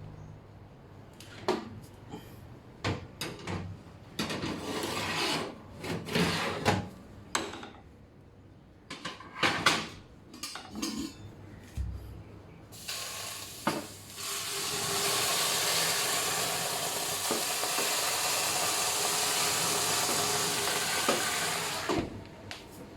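Kitchen handling: scattered clicks and knocks of pans and utensils, then a steady hiss for about nine seconds that stops near the end.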